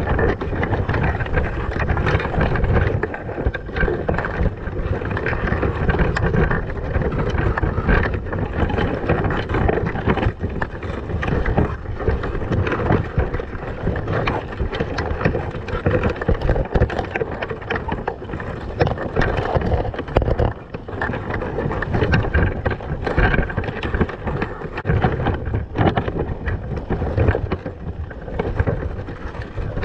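Loud, muffled rushing and rumbling of water against an underwater camera in a submerged crab trap, with frequent knocks.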